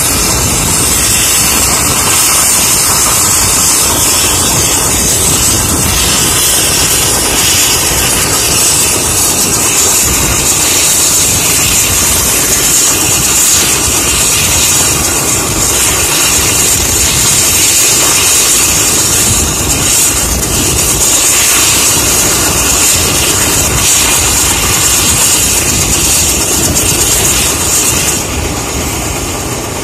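Mil Mi-8 helicopter running on the ground with its twin turboshaft engines and rotors turning: a loud, steady turbine hiss over a rumbling rotor noise. The hiss eases a little near the end.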